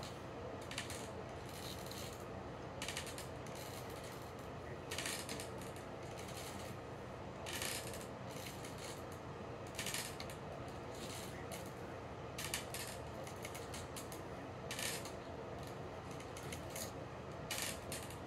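Doorway pull-up bar clicking and rattling in its frame with each pull-up rep, a short metallic clatter about every two and a half seconds over a steady low hum.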